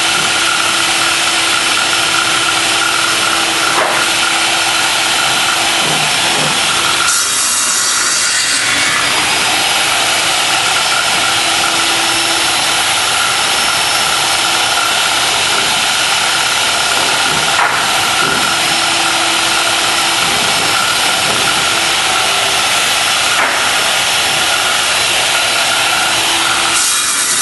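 Power saw running steadily while crosscutting 2x4 lumber into 6-foot lengths, briefly hissier about seven seconds in.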